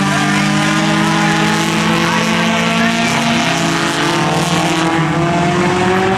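Several four-cylinder dirt track race cars running together, their engines holding a fairly steady pitch with slow rises and falls as they go around the track.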